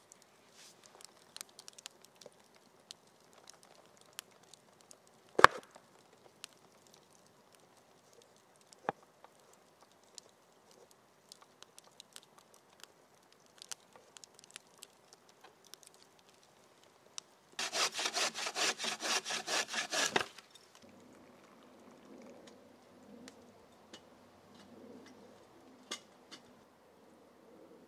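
Light, scattered taps and clicks of hand tools on a workpiece, with one sharp knock about five seconds in. About two-thirds through comes a couple of seconds of quick back-and-forth sawing or rasping strokes, about five a second, then faint low noise.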